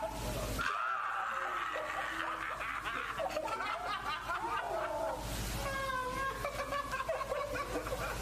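A group of young men laughing and exclaiming loudly in astonishment at a card trick's reveal.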